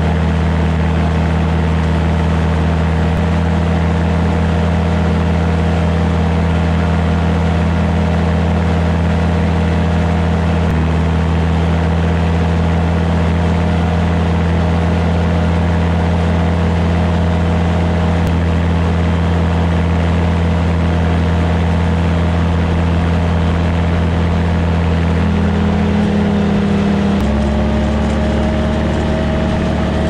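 Engine of a two-axle slope mower running steadily under load while its front-mounted rotary mower cuts standing grass. Near the end the engine note shifts in pitch.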